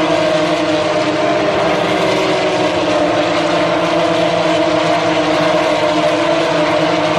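Several FIA Formula 3 cars' naturally aspirated 3.4-litre V6 engines at high revs as the cars pass one after another out of a corner. Their overlapping engine notes make a loud, unbroken drone whose pitches slowly shift.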